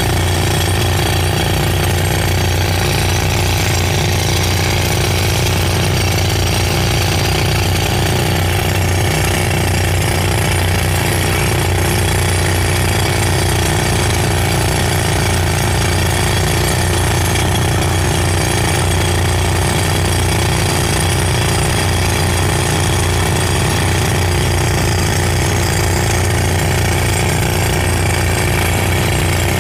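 Compressed-air rock drill (jack hammer) hammering a drill rod steadily into rock, boring a 2-inch blast hole. The noise is loud and unbroken.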